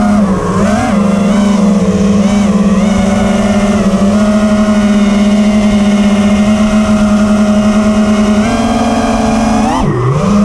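FPV quadcopter's brushless motors and propellers whining, the pitch following the throttle. The pitch wobbles in the first few seconds, holds steady through the middle, steps up, then drops sharply and climbs again near the end as the throttle is cut and punched.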